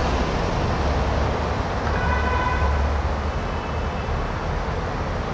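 Busy road traffic: vehicle engines rumbling as a truck and other vehicles pass close by, with a vehicle horn honking once, briefly, about two seconds in.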